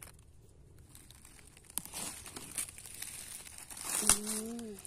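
Dry fallen leaves and twigs crackling and rustling as a hand pushes through forest-floor litter, beginning about two seconds in, with a sharp snap and a louder crackle near the end.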